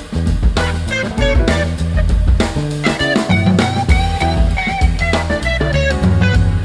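Instrumental background music with guitar and drums over a steady beat.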